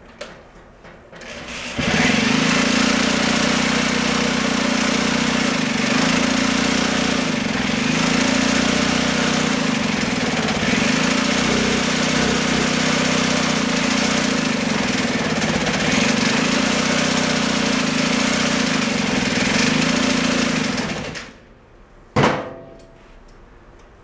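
A 1942 aircraft auxiliary power unit engine catches about two seconds in and runs loud and steady at a constant speed for nearly twenty seconds, then dies away. It is running on a carburetor taken unadjusted from another motor that had a reed valve. A single sharp knock follows.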